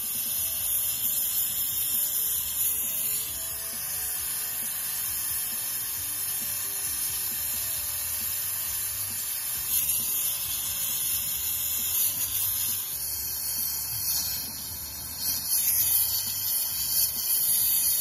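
Small two-hose jeweller's gas torch with a number 7 tip hissing steadily, its flame heating a flux-coated sterling silver buckle to solder on the fittings.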